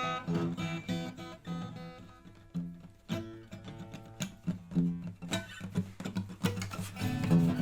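Acoustic guitar played solo: plucked notes and strums in loose, uneven phrases, with a brief lull partway through.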